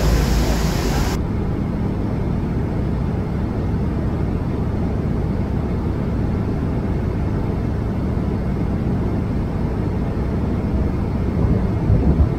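Jet airliner cabin noise in cruise flight: a steady low rumble of engines and rushing air. About a second in, a brighter, hissier cabin sound cuts off suddenly and gives way to it.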